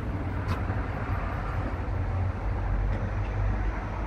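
2015 Isuzu NPR gas dump truck's 6.0-litre gasoline V8 idling steadily, a low, even rumble.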